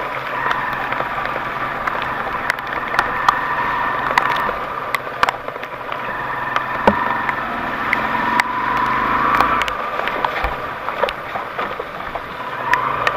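A 4x4's engine running, its pitch rising and falling slowly with the revs, with frequent sharp clicks and knocks over it.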